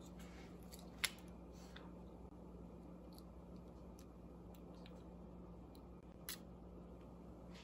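Faint steady room hum with a few small, sharp clicks, the sharpest about a second in and another just after six seconds: eggshell halves clicking together as an egg yolk is passed between them to separate it from the white.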